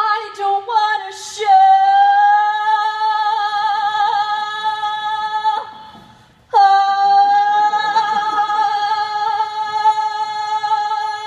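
A solo female voice singing without words, holding a long high note with a light vibrato for about five seconds, breaking off briefly, then holding the same note again.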